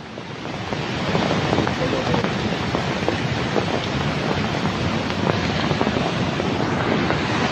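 Steady rushing of a flash-flooded mountain river in spate, with rain falling.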